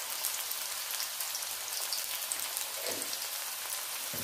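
Sliced onions frying in coconut oil in a kadai: a steady sizzle with fine crackling as they sauté to soften.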